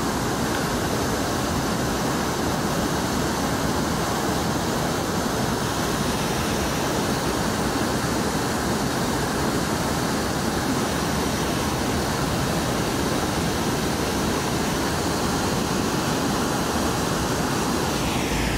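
Steady rushing of water over Brooks Falls, a low waterfall with churning whitewater below.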